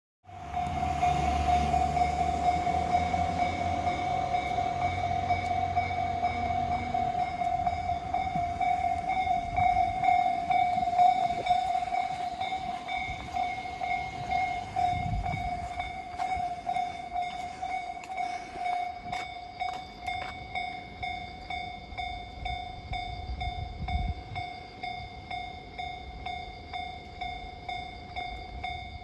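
Japanese level-crossing warning bell ringing in a steady, rapid, even rhythm, while a freight train rumbles through with clicks of wheels over rail joints. The rumble is heaviest in the first half and fades later as the bell keeps ringing.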